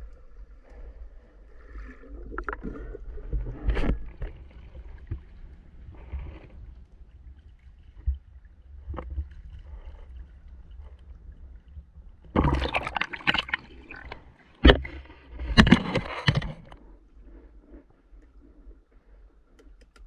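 Water gurgling and sloshing around a head-mounted camera, with occasional sharp knocks; about two-thirds of the way through comes a run of loud splashing in choppy water at the surface.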